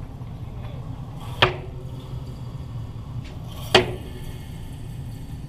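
Two sharp knocks about two seconds apart, each with a short ring, over a steady low hum.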